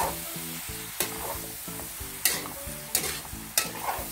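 A metal spatula scraping and knocking against a metal wok as squid, mushrooms and vegetables are stir-fried, with a steady sizzle of frying. The sharp scrapes come about once a second.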